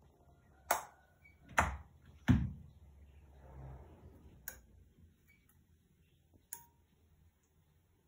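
A series of sharp clicks and knocks: three loud ones close together in the first two and a half seconds, the second and third with a dull thump to them, then two fainter clicks, over a faint low hum.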